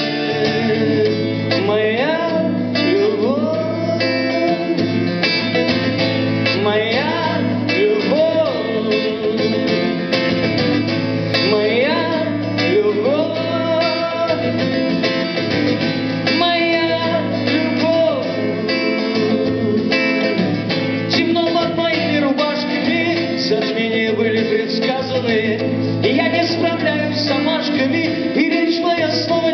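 A live acoustic song: a man singing over a steadily played acoustic guitar.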